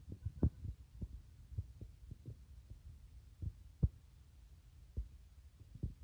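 Irregular soft low thumps and rumble on the phone's microphone, a dozen or so spaced unevenly, with the strongest a little before the four-second mark.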